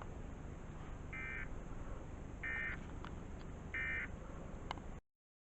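Emergency Alert System end-of-message signal: three short, identical bursts of SAME digital data warble, the "NNNN" end-of-message code, about 1.3 seconds apart over a low background hum. The audio cuts off about five seconds in.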